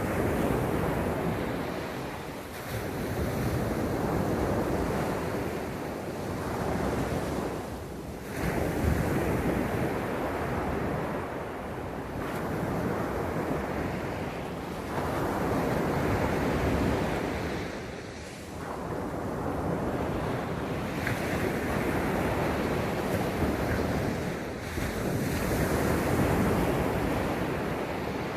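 Sea waves breaking and washing ashore one after another, each one swelling and then falling away about every three to four seconds.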